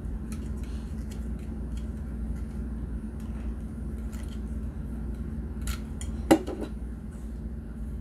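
Small plastic parts clicking and scraping as a tiny plastic trailer stand is worked into a die-cast model trailer, with one sharp click about six seconds in.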